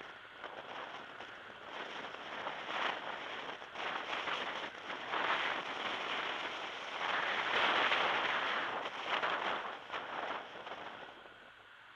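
Wind rushing over a car-mounted camera's microphone with road noise from a car driving along, swelling to its loudest a little past the middle and easing off near the end.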